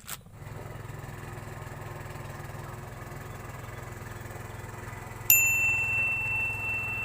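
A steady low engine hum, then about five seconds in a single loud bright ding that rings and fades for nearly two seconds.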